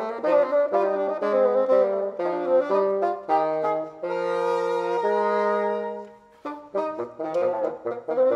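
Two bassoons playing a duet: quick runs of notes, then long held notes together from about three to six seconds in. After a short break they play short detached notes.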